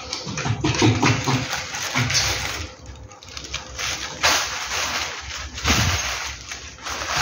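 Small fluffy dog playing with a person's foot: irregular rough play noises and wet mouthing sounds as it bites and paws at the foot, with a lull about three seconds in.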